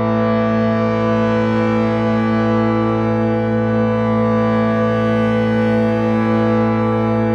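Meditation drone music built around a 528 Hz tone: a chord of held tones sustained without change, with no beat or melody.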